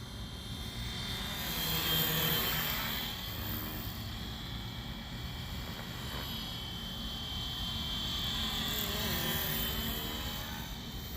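FlyWing FW450 V3 electric RC helicopter in flight: a steady high whine from its motor and rotor blades. It swells as the helicopter passes close about two seconds in, then again around nine seconds.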